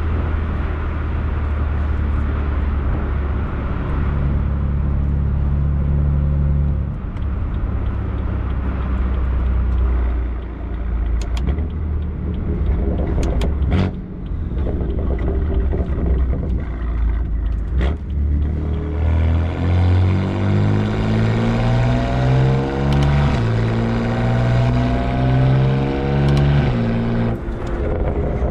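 BMW M4's S55 twin-turbo straight-six exhaust through a new aftermarket axle-back muffler and catless downpipes. At first it runs steadily and low; from about two-thirds in, its pitch climbs and falls in a series of steps.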